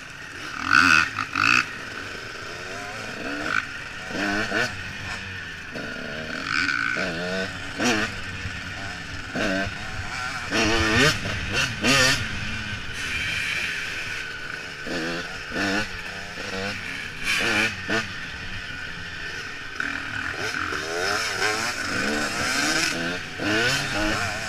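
Dirt bike engine revving up and down through the gears while riding a bumpy trail, heard from the rider's helmet. Sharp knocks and thumps break in now and then, the loudest about a second in.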